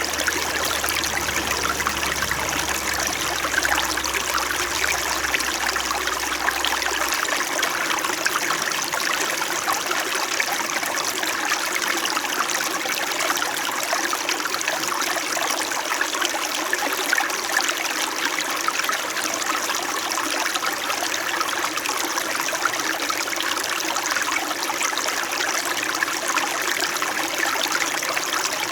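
Small winter stream flowing steadily: a continuous, gentle babbling of water.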